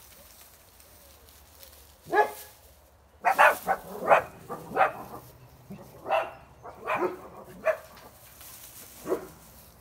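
Small dog yapping: a dozen or so short, high barks in uneven bursts, starting about two seconds in.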